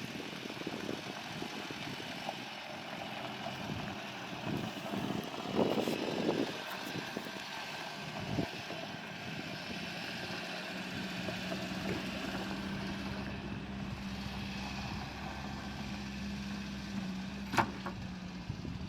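A vehicle engine running at idle, with a steady low hum that sets in about halfway through, and a single sharp click near the end.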